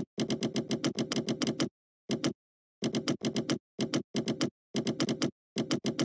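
Computer keyboard typing: quick runs of keystroke clicks in bursts, with brief pauses between them, about two seconds in and again near three seconds.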